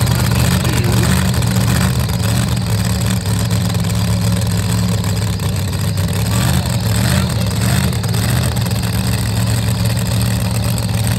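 Supercharged V8 engine of a modified pulling tractor idling loudly and steadily.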